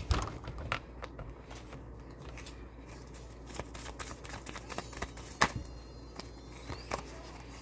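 A deck of cards shuffled in the hands: a steady run of small, irregular clicks and ticks as the cards slide and flick against each other. A few sharper snaps stand out near the start, about five and a half seconds in, and near the end.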